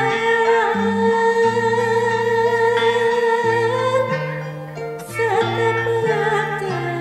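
Cassette recording of Sundanese tembang Sunda Cianjuran: a long, wavering sung line held over plucked kacapi zither notes stepping in the bass. The held line breaks off briefly past the middle, then resumes.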